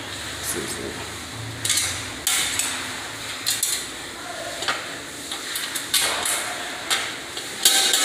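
Light metallic clatter and sharp knocks of a breaker panel's metal cover being handled and fitted in place, several irregular clicks about a second apart.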